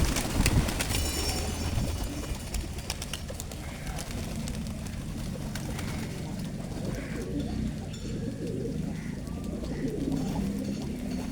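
Pigeons cooing in a low, steady throb, with a few faint short calls from other birds higher up.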